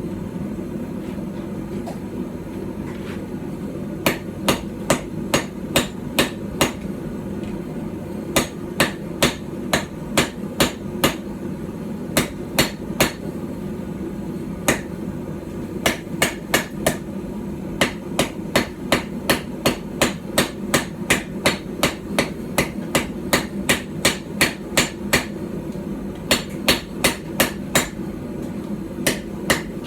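Blows of a small hand-forged hammer, about 12 ounces, on steel on a small stump anvil. The strikes come in runs of about two or three a second, with short pauses between the runs, over a steady low hum.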